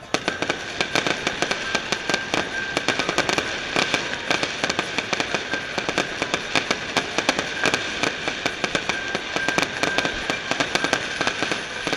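Fireworks going off in rapid succession: a dense run of sharp bangs and crackles that starts suddenly and keeps up without a break.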